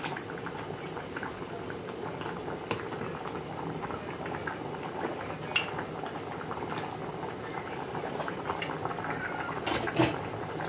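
Pot of rice and split peas in coconut milk boiling on the hob: a steady bubbling with many small pops, and one brief louder click near the end.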